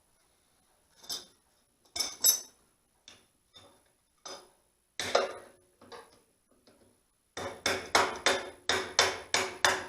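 Steel hand tools clinking and knocking against the backhoe's metal parts, a few separate clanks and then a quick run of about nine sharp metal strikes near the end, roughly three a second.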